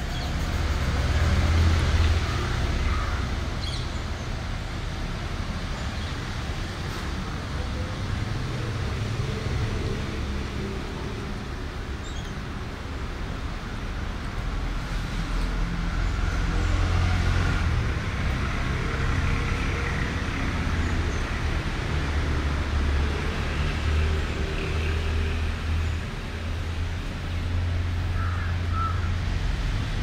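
Steady low rumble of road traffic, with a crow cawing now and then.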